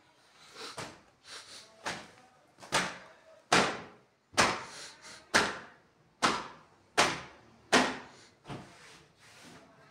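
A dusting cloth being flicked and whacked against wardrobe cupboard panels, about ten sharp strikes at roughly one a second, loudest in the middle.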